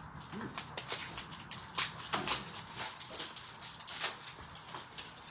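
Trading card packaging being torn open and handled, with plastic wrap and foil pack wrappers crinkling in irregular sharp crackles.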